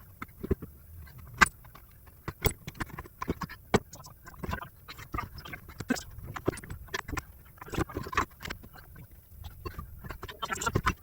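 Irregular metal clunks, knocks and scrapes as a new rear strut assembly is wrestled up into a car's wheel well and catches on the plastic splash shield and surrounding parts. The sharpest knock comes about a second and a half in.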